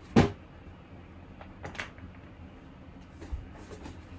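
A cardboard box being handled on a table: a sharp knock just after the start, a softer one about a second and a half later, then a few light clicks near the end.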